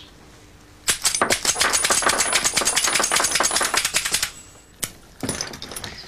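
Fruit-machine coin-payout electromagnet (solenoid) clattering rapidly, about ten sharp clicks a second for a little over three seconds, as its plunger pumps in and out the way it pushes coins out on a win; one more click follows about a second later.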